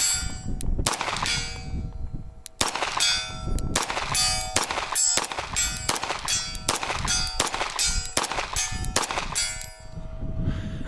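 Pistol fired in a rapid string, about two shots a second, each shot followed by the ringing clang of a hit steel target; the firing stops near the end.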